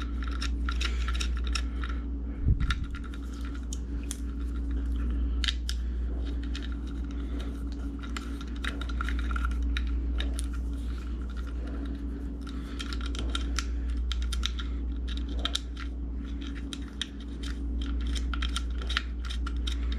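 Small metal barrel nuts clicking and clinking as they are handled and fitted into the deadbolt's holes in the door, with one heavier knock a couple of seconds in, over a steady low hum.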